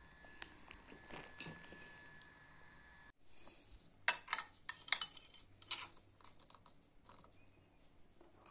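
A metal spoon in a small ceramic bowl of pomegranate seeds, clinking sharply against the bowl several times near the middle. Before that there are a few seconds of faint steady room hum.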